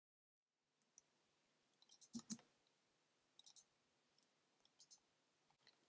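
Near silence with a few faint clicks from someone working a computer: a close pair about two seconds in, then a few softer ticks.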